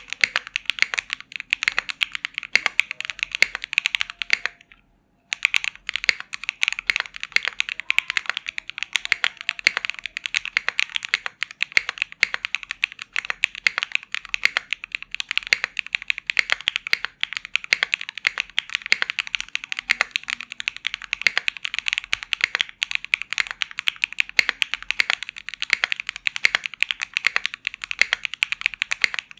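Fast, continuous typing on a custom HHKB-layout mechanical keyboard with an aluminium plate, hotswap PCB and Keygeek Briny keycaps: a dense stream of key clacks. The typing stops for about half a second around five seconds in, then carries on.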